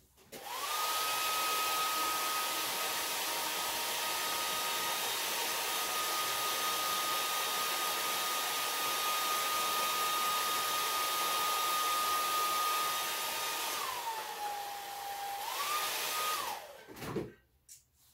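Hand-held hot-air dryer running steadily, a rushing blow with a constant whine, drying fresh paint on a small painted craft piece. Near the end the whine drops in pitch for a second or so, rises back, and the dryer is switched off.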